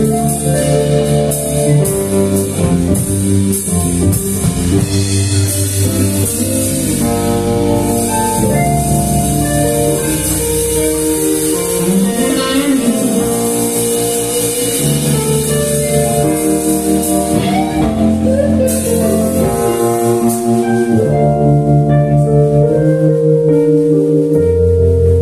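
Live band playing: electric guitars, electric bass, drum kit and electric keyboard together.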